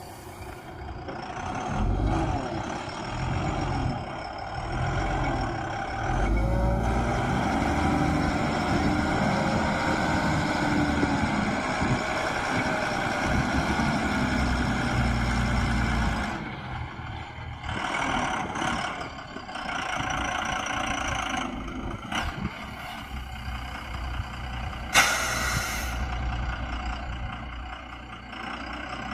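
Diesel engine of a Tata 340H backhoe loader working, its pitch rising and falling as the load changes, with a dump truck's engine alongside. Near the end comes a brief, sharp hiss of air.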